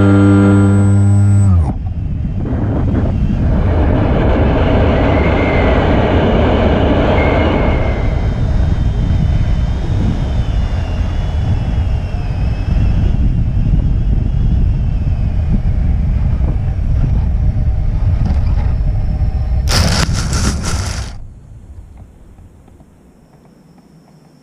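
The electric motor and propeller of an Opterra flying wing run with a steady buzzing tone that cuts off about two seconds in. Loud wind noise then rushes over the onboard camera's microphone. About twenty seconds in there is a short harsh burst, after which the rushing stops and only a faint background remains.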